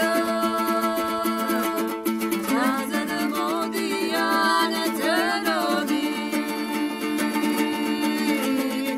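Two women singing a Georgian song together in long held notes that glide between pitches, over a strummed panduri, a long-necked fretted Georgian lute.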